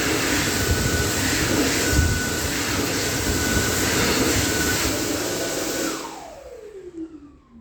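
Electric hand dryer blowing, a loud steady rush of air with a steady motor whine. About six seconds in it shuts off, and the whine falls in pitch as the motor spins down.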